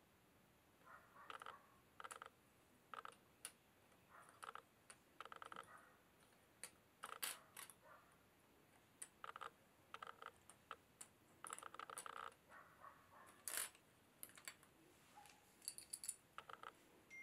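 Small plastic sewing clips clicking and sliding on a hard tabletop as they are set down and nudged into place one by one: a faint, irregular string of clicks and short scrapes.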